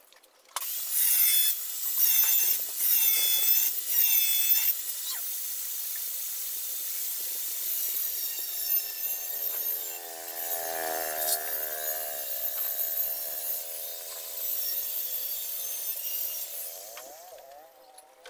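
Power cutting tool with a high whine, the pitch dipping under load in four cuts over the first few seconds, then running more steadily before fading out near the end.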